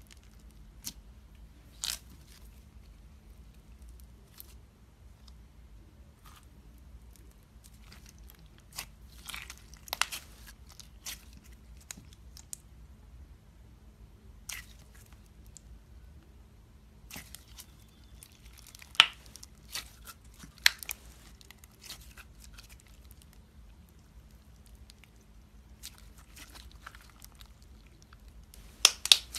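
Clear floam slime full of foam beads being pressed, squeezed and stretched by hand: scattered crunchy crackles and pops as the beads shift, coming in irregular clusters with quiet gaps between.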